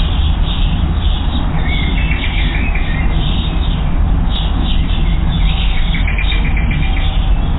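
Small songbirds chirping in quick repeated calls, with a rapid trill about two seconds in and another near the end, over a steady low rumble.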